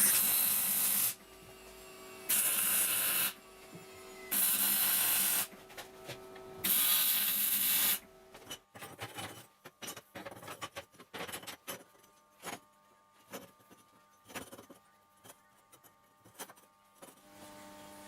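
Four harsh bursts of about a second each from a power tool working metal, with a steady hum between them, followed by a string of irregular sharp clicks and taps.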